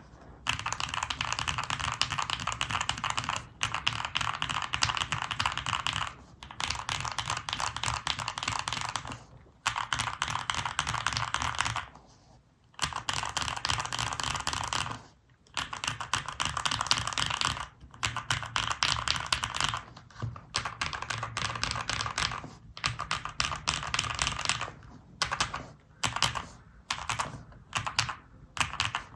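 Fast typing on a Luminkey65 mechanical keyboard with lubed and filmed Cherry MX Nixie switches, an FR4 plate and GMK keycaps: rapid keystrokes in runs of a few seconds, broken by short pauses.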